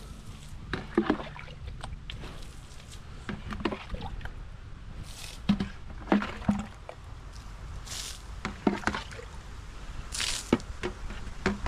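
Water being handled in a container: irregular knocks and clatters with a few short splashes and drips.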